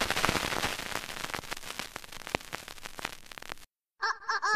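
Dense crackling with scattered sharp pops, dying away over about three and a half seconds and then cutting off. A singing voice begins near the end.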